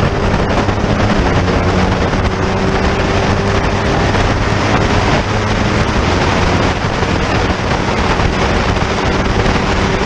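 Heavy wind rush over a motorcycle-mounted camera's microphone at speed, with the motorcycle's engine running underneath at a steady pitch that fades in and out of the wind noise.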